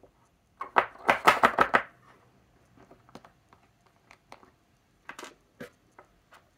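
Small objects handled on a desk: a quick run of clicks and rattles about a second in, then scattered light clicks and taps as an ink sample vial is uncapped and a pen is picked up.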